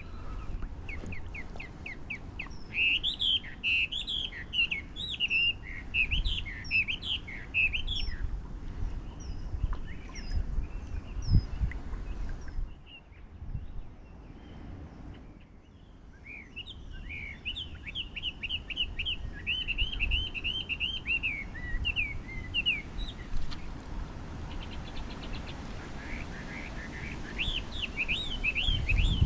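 A songbird singing in several runs of quick, high chirping phrases with pauses between them, over a steady low rumble.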